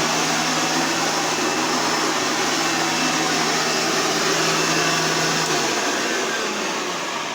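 Green Hoover Legacy upright vacuum cleaner running with a steady motor whir, then switched off about six seconds in and winding down.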